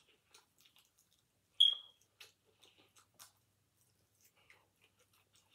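Close-up mouth sounds of a person eating fried fish off the bone by hand: small wet clicks and lip smacks of chewing, with one much louder, sharp smack with a brief high ring about a second and a half in.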